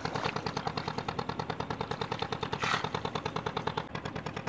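Small engine running steadily, a regular chugging of about seven beats a second, with a brief hiss about two and a half seconds in.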